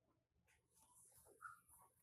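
Near silence: room tone, with one faint brief sound about one and a half seconds in.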